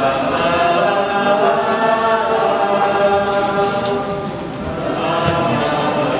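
A group of voices chanting together in long held notes, easing off briefly about four and a half seconds in and then picking up again.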